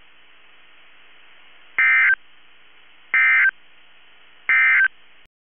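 Emergency Alert System End of Message data sent three times over NOAA Weather Radio: three short bursts of digital data tones about a second and a half apart, with faint receiver hiss between them. The signal cuts off just before the end.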